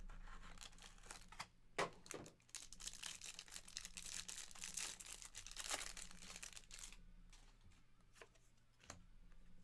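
A 2023 Panini Absolute Football trading-card pack wrapper being torn open and crinkled. The crackling dies down about seven seconds in, leaving a few faint ticks as the cards are handled.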